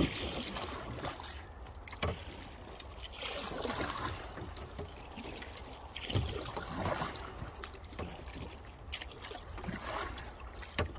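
Kayak paddle strokes in creek water, a splashing swell every few seconds, with a few sharp knocks along the way.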